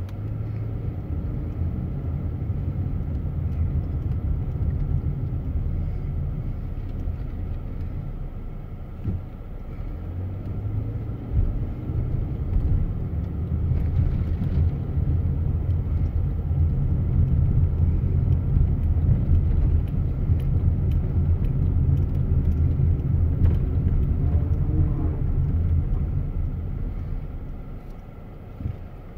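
Car engine and road rumble heard from inside the cabin while driving slowly through city streets, growing louder about halfway through and dying down near the end.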